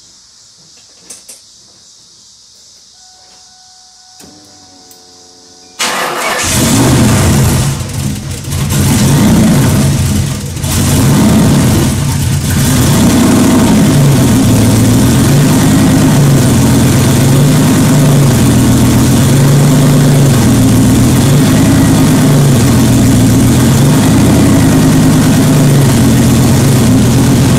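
Turbocharged 2003 Ford Mustang Mach 1's 4.6-litre DOHC V8 being started: after a few quiet seconds it cranks and catches about six seconds in. It surges and dips for several seconds, then settles into a loud idle whose pitch rises and falls slowly and unevenly.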